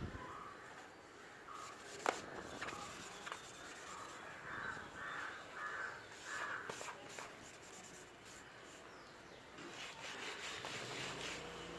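A bird calling in the background: a run of short, harsh calls repeated about twice a second in the middle, with a couple of sharp clicks in between.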